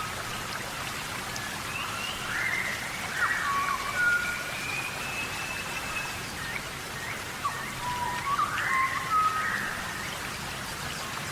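Steady tropical rainforest rain, an even hiss of falling rain with scattered drops pattering. Over it, short whistled animal calls rise and fall in pitch and repeat every few seconds.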